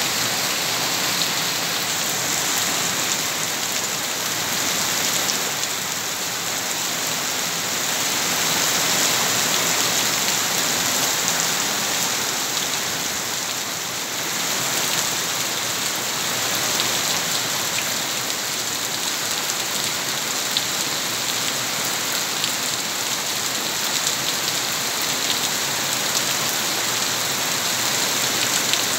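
Heavy rain falling steadily on garden plants, paving and a shed roof, with water pouring off the roof edge: an even, unbroken hiss with faint patter.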